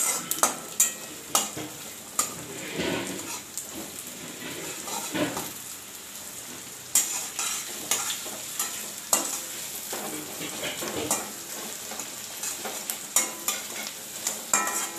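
Onions sizzling in hot mustard oil in a kadhai while being stirred, with irregular knocks and scrapes of the stirring utensil against the pan. The onions are at the light-browning stage of frying.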